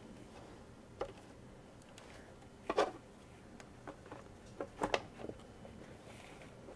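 A few light plastic clicks and knocks as the black plastic top cover of a scan-tool interface module is fitted and pressed onto its base: one about a second in, a quick double click near the middle, and a small cluster a little later.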